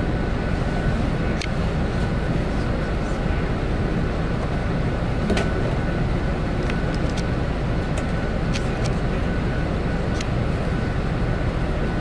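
Vehicle engine running steadily, a low rumble with a faint steady high whine, and a few sharp clicks scattered through it.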